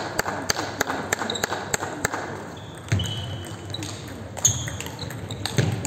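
Table tennis ball bouncing in a quick even rhythm, about three a second. From about three seconds in, louder single knocks come over a second apart as a rally is played, with shoes squeaking on the sports-hall floor.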